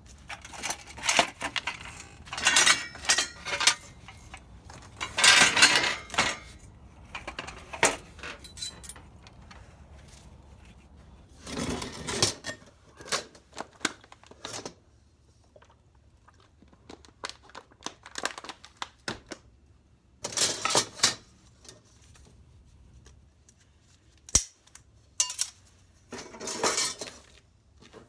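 Pieces of scrap metal clattering and clinking as they are handled and moved, in irregular bursts with pauses between them.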